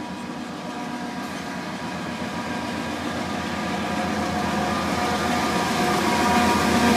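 Canadian Pacific diesel locomotive at the head of a grain train approaching, its engine drone growing steadily louder.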